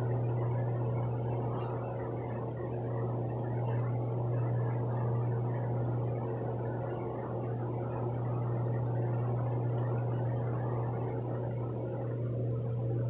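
Steady low electrical hum, with a few faint, brief rustles in the first four seconds that fit a comb being pulled through hair.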